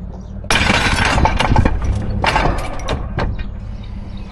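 Ford half-ton pickup backing slowly over gravel toward a nurse tank's hitch, its engine running steadily under two spells of loud crunching and popping from the gravel under the tyres: the first starts suddenly about half a second in, the second just past two seconds. A few separate clicks follow near the end.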